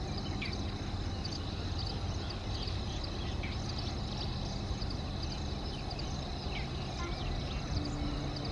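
Birds chirping and calling and an insect's steady high drone, over a low steady rumble from an approaching EMD WDP-4D diesel locomotive.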